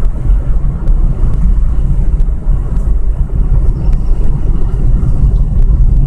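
Car driving: a loud, steady low rumble of engine and road noise, with a few faint ticks.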